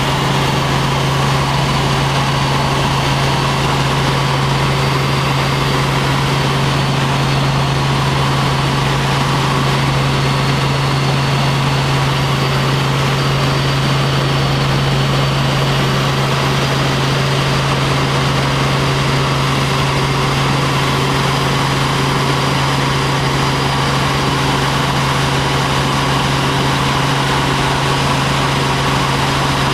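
Helicopter in flight: a steady, loud engine and rotor drone with a constant high whine over it.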